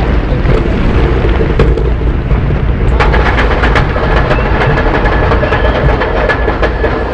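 Roller coaster train running along its track: a loud, steady rumble with rushing noise, joined about three seconds in by rattling clicks and a thin steady whine.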